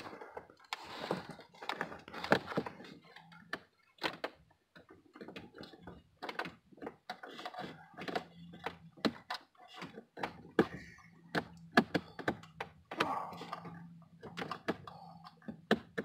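Scattered light clicks and knocks, irregular and unevenly spaced, from a hand working blind behind a pickup's dashboard, fumbling the wiring connector toward the temperature blend door actuator.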